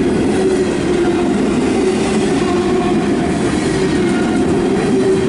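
Double-stack intermodal freight train's well cars rolling past close by: steel wheels on rail making a loud, steady rumble with a steady ringing tone above it.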